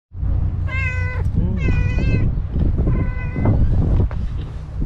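Domestic cat meowing three times, each meow about half a second long, over a steady low rumble.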